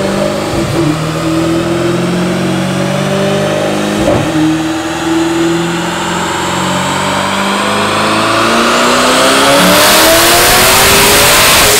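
Twin-turbo LT2 V8 of a C8 Corvette with a titanium cat-back exhaust, run on a chassis dyno. The engine holds a fairly steady note, then winds up in pitch and grows louder over the last few seconds as it pulls through the revs.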